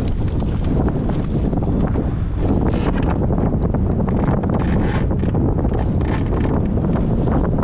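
Strong wind buffeting the microphone over choppy water, with waves slapping against an inflatable boat.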